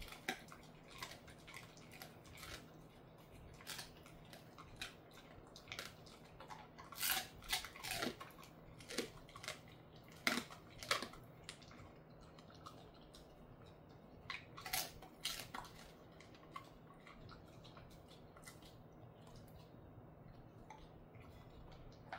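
A dog crunching and chewing a chicken-foot treat: irregular sharp crunches, closely spaced at first and growing sparse toward the end.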